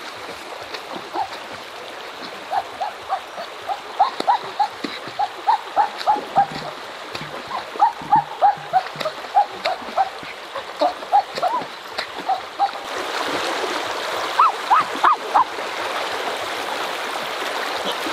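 Shallow river water running over stones, with a louder rush of splashing from about two-thirds of the way through as someone splashes in the water. Throughout, short high chirping calls come several times a second, in little clusters.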